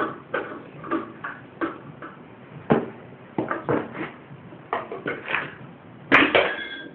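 Irregular metal knocks and clanks from hand tools working on an old lawn mower's engine and deck while the engine is being unbolted, with a louder, ringing metallic clank about six seconds in.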